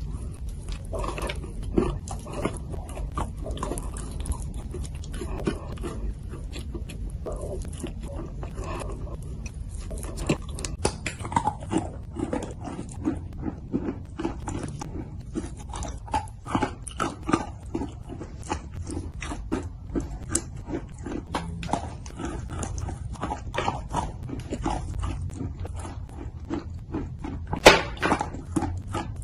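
Close-up wet chewing and biting of soaked chalk: irregular wet smacks, squelches and small crunches from the mouth, with one sharp, loud bite click near the end.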